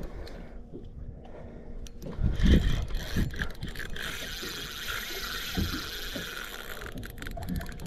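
Wind buffeting the microphone and water lapping against a small boat's hull, with irregular low thumps and a steady hiss from about two seconds in until near the end.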